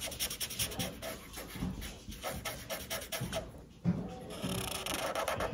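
Black Sharpie marker scratching on paper in short strokes while drawing, with a single thump about four seconds in.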